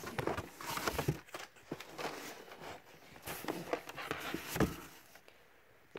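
Hands rummaging among blister-packed Hot Wheels cars in a cardboard box: plastic packaging and cardboard clicking and rustling, with one louder knock about four and a half seconds in.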